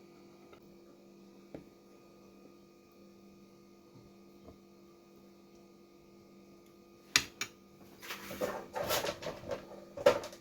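Steady electrical hum with several fixed tones, then sharp clicks about seven seconds in and a burst of clattering and knocks near the end.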